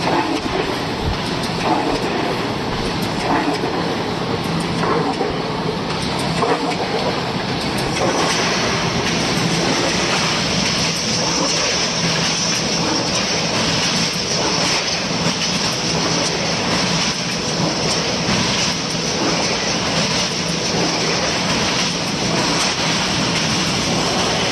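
Automatic sheet-metal slitting machine running: its sheet feeder, conveyor and rotary carbide slitter cutters make a steady mechanical clatter with faint regular clicks. A brighter hiss joins about eight seconds in.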